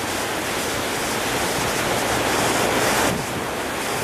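Gale-force wind blowing hard across the microphone, a loud steady rushing that swells about three seconds in and then drops off abruptly.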